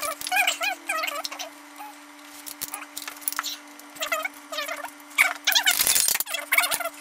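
Speech sped up to a fast, high-pitched chatter over a steady low hum, with a short loud burst of noise about six seconds in.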